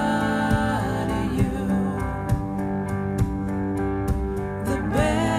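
Music track led by guitar, with sustained notes and chord changes.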